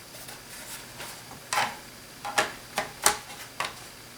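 Plastic bottom case cover of an HP ProBook 4440s laptop clacking against the chassis as it is handled into place: about five sharp clicks over two seconds, starting about a second and a half in.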